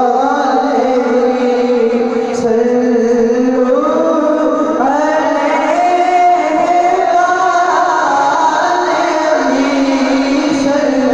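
Men's voices singing an Urdu naat into microphones, in long held, gliding melodic lines.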